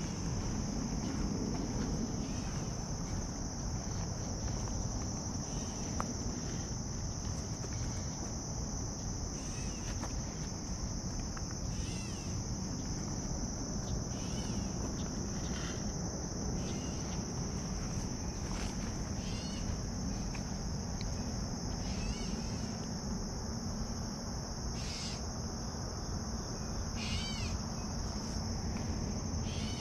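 A steady, high-pitched insect chorus, with short bird chirps several times in the second half.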